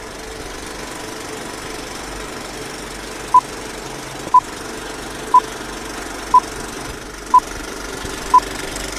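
Old film-leader countdown sound effect: a steady projector whir and rattle with a short, loud beep once a second, six beeps in all, starting about a third of the way in.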